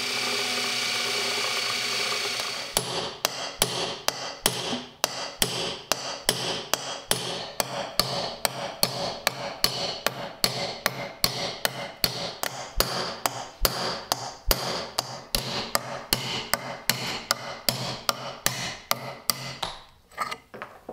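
A cordless drill runs steadily in the wooden handle for about two and a half seconds. Then a hammer taps repeatedly, about three even strikes a second, driving a rusted pin out through the handle. The strikes stop shortly before the end.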